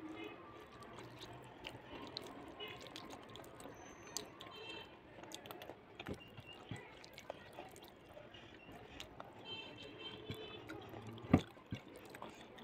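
Eating rice by hand from a plate: fingers mixing and gathering soft rice and curry give scattered wet clicks and smacks, with one sharper click near the end.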